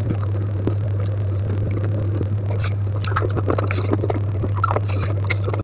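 Fingers scraping and wiping food off a stainless steel plate: a run of small scratchy ticks, coming more often in the second half, over a steady low hum.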